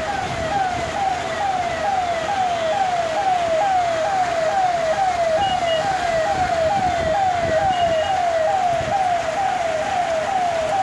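Siren-like electronic wail: a pitched tone that sweeps downward and restarts about three times a second, steady throughout, over a hiss of rain.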